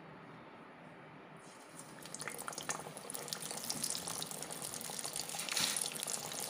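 Maggi-noodle-coated potato cutlets deep-frying in hot oil: a dense sizzle full of small crackles that starts about a second and a half in as they go into the oil, and grows louder.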